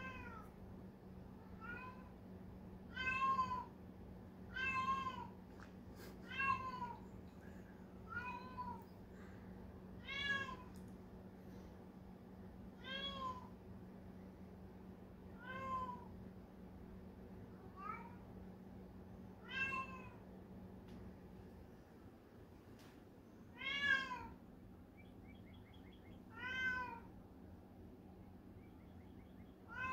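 Cat meowing over and over, about a dozen drawn-out calls two to three seconds apart, each rising then falling in pitch: the repeated calling its owner calls singing.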